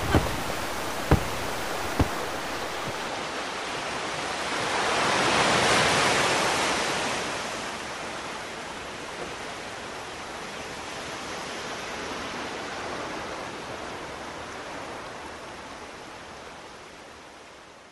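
A steady rushing noise with no tune or voice. It swells to its loudest about five to seven seconds in, then slowly fades away. A couple of sharp clicks come in the first two seconds.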